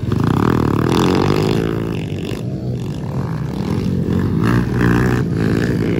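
Several pit bike engines revving hard as the small dirt bikes race past, their overlapping engine notes rising and falling in pitch with the throttle.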